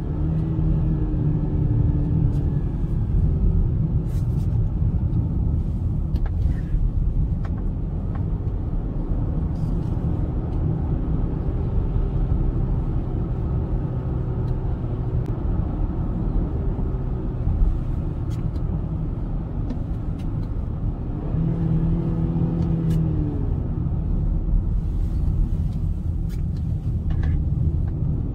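Inside the cabin of a 2021 BMW X3 30i driven on an open road: its turbocharged four-cylinder engine note rises and falls a couple of times over a steady rumble of road and tyre noise.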